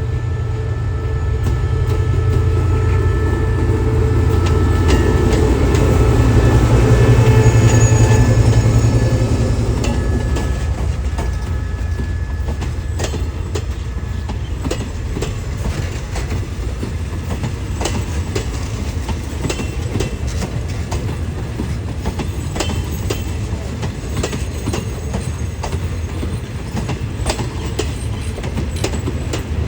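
Diesel locomotive of a Thai passenger train running past, its engine loudest about eight seconds in. The carriages then roll by with a steady clickety-clack of wheels over the rail joints.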